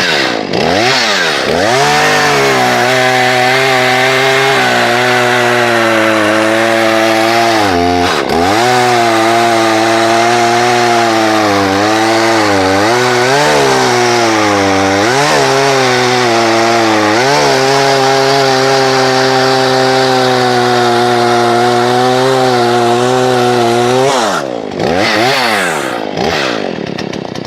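Husqvarna 120 Mark III chainsaw's 38 cc two-stroke X-Torq engine running loud at high revs, held steady for several seconds at a time. Between the steady stretches the revs drop away and climb back again several times, with a few quick blips near the end.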